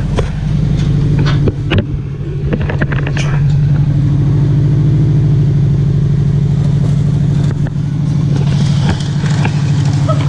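Scion FR-S flat-four engine running through catless unequal-length headers and a muffler delete, a loud steady rumble. A few sharp knocks or scrapes come about one and a half to three seconds in.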